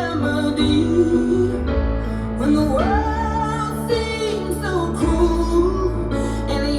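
Music: a recorded song with a singer holding long, wavering notes over a steady accompaniment.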